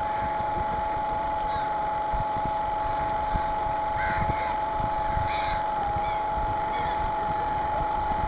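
Battery-powered radio-controlled model boat's electric motor whining at a steady pitch, heard from a camera on board, over a low rough rumble of water and wind against the hull.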